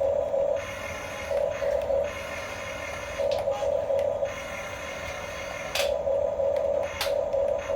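Small electric drive motors and plastic gearboxes of toy RC construction vehicles whining in short stop-start runs, with two sharp clicks near the end.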